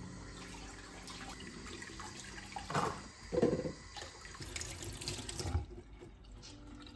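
Water running from a kitchen mixer tap into a stainless steel sink while hands are rinsed under it, with a few louder splashes about three seconds in. The water stops near the end.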